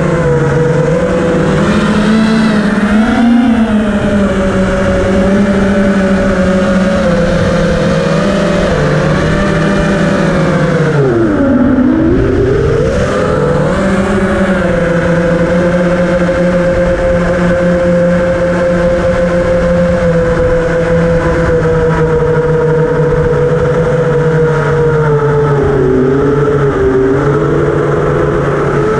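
FPV quadcopter's electric motors and propellers whining steadily, recorded by the onboard camera, with a sharp drop in pitch partway through that climbs straight back up as the throttle is chopped and punched again.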